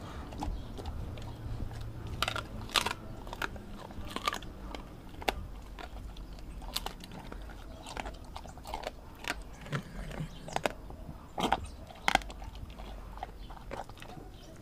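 A Doberman chewing and crunching raw meat from a stainless steel bowl: irregular sharp bites and crunches, a few of them louder, about three seconds in and again near the end.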